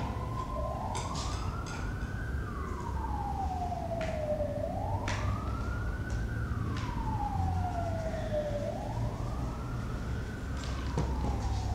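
Emergency vehicle siren in a slow wail, its pitch rising and falling about every four seconds, over a low rumble, with a few brief clicks.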